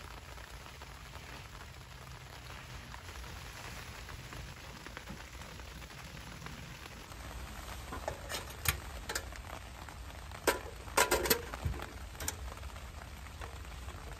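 Steady patter of rain. From about eight seconds in, a handful of sharp clicks and knocks as a small portable gas heater and the things beside it are handled, the loudest a quick cluster a little past the middle.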